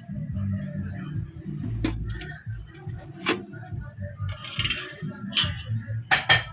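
A few sharp clicks and knocks, the loudest a quick pair near the end, over a low murmur of background music and voices.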